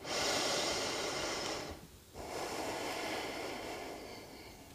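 A woman taking deep, audible breaths: two long breaths of about two seconds each, the second fading away.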